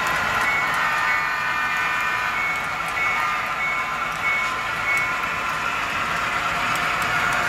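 HO scale model freight train running along the track: a steady whirring rail-and-motor noise, with a short high tone repeating about every half second for the first five seconds.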